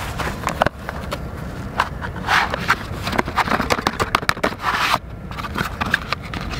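Light clicks, taps and scraping from a cardboard box of match-headed firelighters being handled and slid open by hand.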